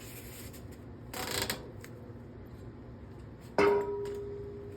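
Metal tools working a bicycle cassette lock ring: a short grinding rasp about a second in as the lock ring is tightened down, then a sharp metal clink near the end that rings on with a steady tone and fades slowly.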